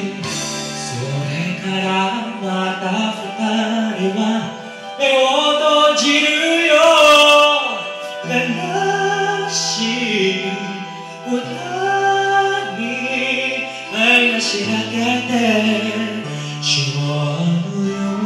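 A young man singing a Japanese pop ballad into a karaoke microphone over the backing track, the voice gliding between held notes above sustained bass notes.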